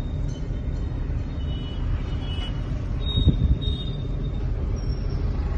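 Steady low engine and road rumble inside a moving Suzuki car's cabin in town traffic, with a single knock about three seconds in.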